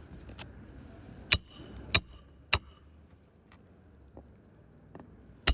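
Roof snake nail-driving tool striking a roofing nail under a shingle: three sharp metallic strikes with a brief ringing clink, about half a second apart, then another strike near the end.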